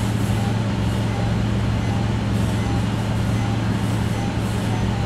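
Steady low electrical hum over an even hiss, with faint short electronic beeps recurring about every half second.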